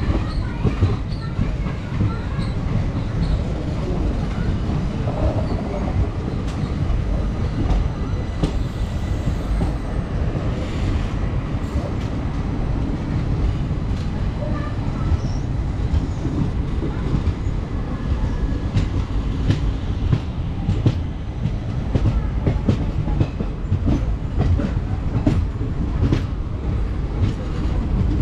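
ICF passenger coaches of an Indian Railways express train running on the line: a steady low rumble with irregular clicks and clatter from the wheels on the track.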